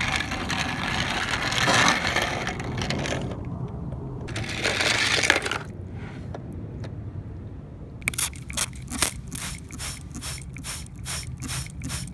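Die-cast toy cars scraping along a plastic toy track, first as two longer rasping stretches, then as a quick run of short scrapes about three a second.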